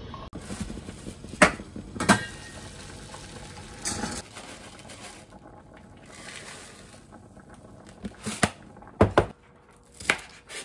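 Stainless steel pots clanking against the induction hob as they are handled, over water at a rolling boil. Then a knife knocks on a cutting board as garlic is sliced, with several sharp knocks near the end.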